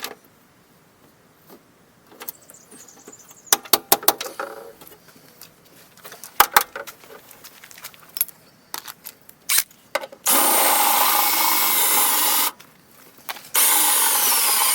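Scattered clicks and knocks of metal parts being handled, then a cordless drill running in two steady bursts, the first about two seconds long and the second starting about a second and a half later.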